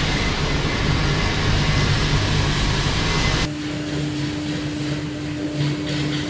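Steady machine drone from the pinch plate rolling machine in a metal workshop. About halfway through, the loud rushing noise cuts off abruptly, leaving a steady hum.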